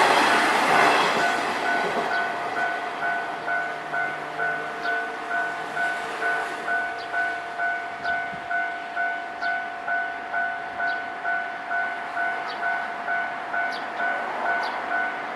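A train passes a Japanese level crossing, its noise dying away in the first second or so. The crossing's warning bell keeps ringing after it has gone, a steady two-tone ding just under twice a second: the crossing stays closed.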